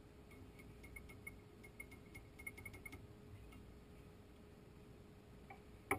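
Faint small glass ticks and clinks, several in quick runs over the first three seconds, as a glass graduated cylinder finishes pouring coolant into a glass viscometer tube and is lifted away. One sharper click comes near the end, over a low steady room hum.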